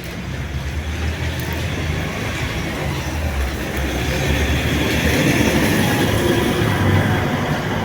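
Rumble and hiss of a passing vehicle, swelling to its loudest about five to seven seconds in and easing near the end.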